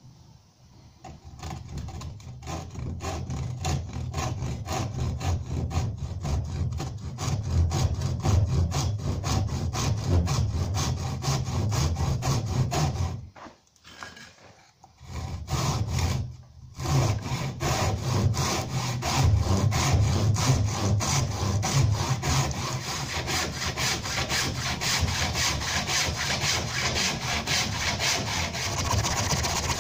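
Handsaw cutting through the timber of a wooden door frame with steady back-and-forth strokes. The sawing stops for a moment about halfway through, pauses briefly again, then carries on.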